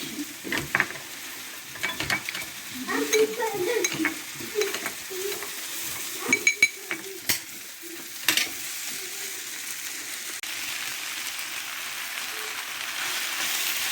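Rice and vegetables sizzling in a pan while a utensil stirs them, clicking and scraping against the pan during the first eight seconds or so. After that only the steady sizzle remains, growing louder near the end.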